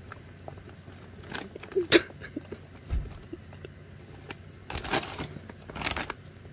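A Welsh Corgi nosing and pushing into a bag among boxes to hide something: scattered rustles, taps and scrapes, with a sharp knock about two seconds in and two short rushes of rustling or sniffing near the end.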